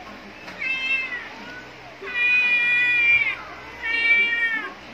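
Cat meowing three times: a short falling meow, then a long steady one that is the loudest, then a shorter one near the end.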